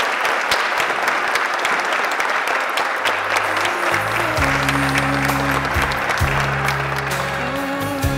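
A congregation applauding, a dense patter of many clapping hands. About three seconds in, music with held bass notes and a slow melody comes in under the applause and grows louder.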